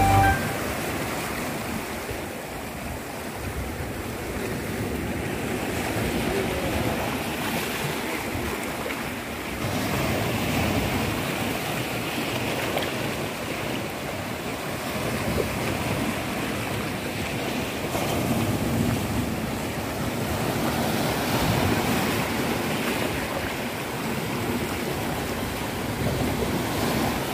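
Sea waves breaking and washing over rocks at the shoreline: a steady rush of surf that swells and eases every few seconds.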